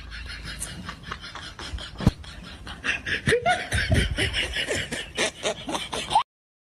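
Laughter in quick, pulsing bursts that grows louder from about three seconds in, then cuts off abruptly shortly before the end.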